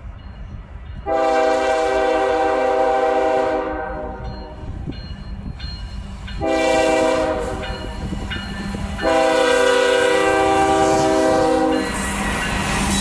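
BNSF diesel freight locomotive's air horn sounding three blasts, long, short, then long, each a chord of several steady tones, over the low rumble of the approaching train.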